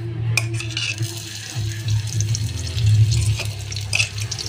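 Chopped garlic and green chillies dropped into hot oil, crackling and sizzling as they fry. A sharp click comes about half a second in.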